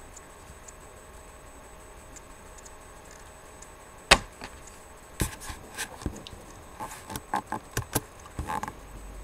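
A faint steady hum, then a sharp knock about four seconds in, followed by a run of about a dozen irregular clicks and knocks over the next few seconds.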